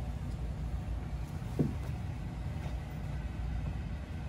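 Steady low room hum, with one short knock about one and a half seconds in.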